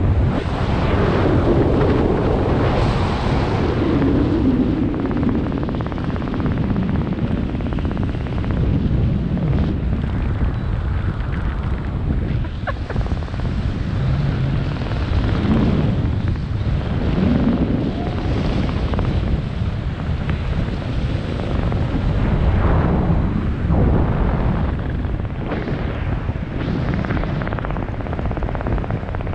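Wind noise on a skydiver's camera microphone from the airflow while descending under an open parachute canopy. It is a loud, deep rush that swells and eases every few seconds.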